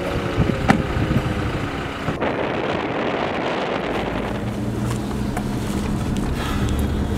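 A Toyota 4x4 pickup driving on a desert track: the engine runs with tyre and wind noise. In the second half a steady low drone is heard from inside the cabin.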